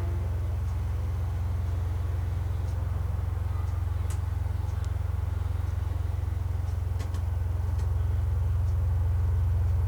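Computer-synthesized stereo signal generated from the points of a nested-circle curve through mid/side equations: a steady low drone with a few faint clicks, growing a little louder near the end.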